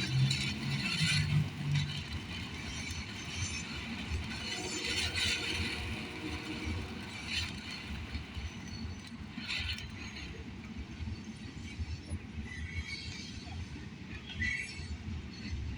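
Consumer firework fountain burning with a steady hiss and scattered crackles.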